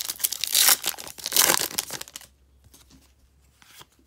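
Foil wrapper of a Topps WWE SummerSlam trading card pack being torn open and crinkled, loud for about the first two seconds with two peaks. After that there are only faint rustles of the cards being handled.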